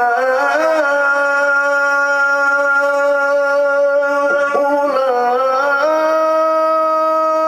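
A male Quran reciter (qari) in tilawah, holding one long melodic note on a drawn-out vowel. The note is decorated with ornamental turns and steps up in pitch about six seconds in.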